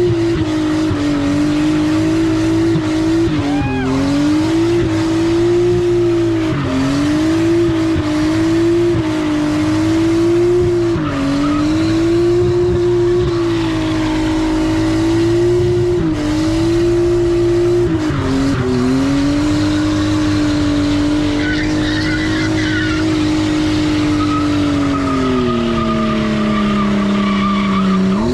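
Nissan Laurel drift car's engine held high in the revs while its rear tyres spin and squeal in a smoky burnout. The revs dip briefly every second or two, then fall away and pick up again near the end.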